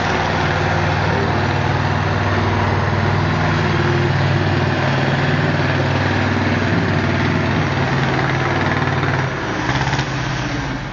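Ursus C-330 tractor's two-cylinder diesel engine running steadily. A little over nine seconds in, its note drops and it gets slightly quieter.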